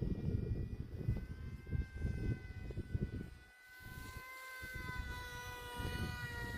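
Small brushless electric motor and propeller of an RC model jet whining steadily in flight, its pitch shifting slightly as it passes, under gusty wind buffeting the microphone, which dips briefly about halfway through.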